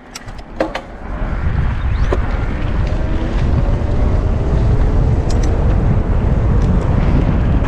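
Wind buffeting the camera microphone, with tyres rolling over a dirt trail, as a Specialized Levo e-mountain bike sets off downhill. The rumble builds from about a second in and then stays loud. A few sharp clicks come at the start.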